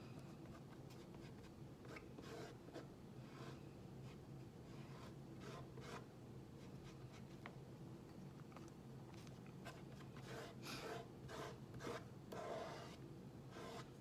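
Faint, irregular scraping and rubbing strokes of a plastic squeegee and fingertips working chalk paste across a silkscreen transfer, with several stronger strokes in the last few seconds.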